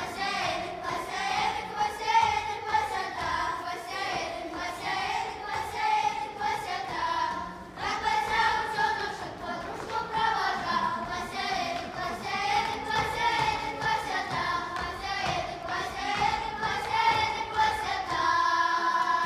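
Children's folk ensemble singing a Russian folk song together, the melody going in repeated rising and falling phrases. Near the end the voices hold one long note.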